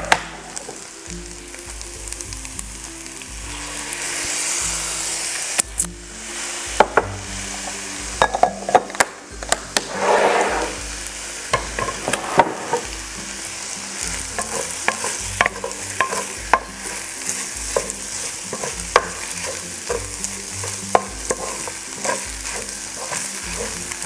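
Kimchi fried rice sizzling in a non-stick frying pan as a wooden spatula stirs and scrapes through it, with many sharp taps of the spatula against the pan. The sizzle swells briefly about four seconds in.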